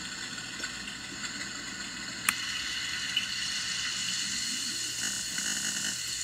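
Circuit-bent Homedics Sound Spa SS-2000 sound machine putting out a glitched, pitch-bent hiss with crackle and faint steady tones. A sharp click comes a little over two seconds in, after which the noise is slightly louder.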